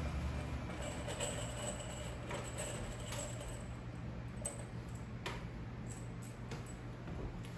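Scattered light clicks and rattles of screws being handled from a tool belt pouch and fitted onto a cordless drill's bit, over a steady low hum.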